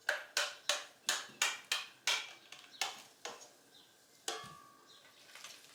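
A spoon clinking and tapping against a dish while scooping mayonnaise into a tuna mix: about three quick clinks a second for the first three seconds, then a couple of slower knocks.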